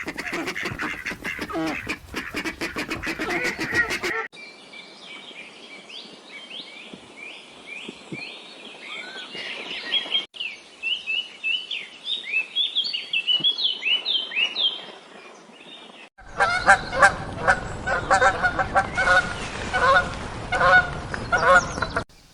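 Poultry calling in three short bursts. First comes a dense run of honking calls, then many overlapping high, short chirps, then loud repeated honking calls again.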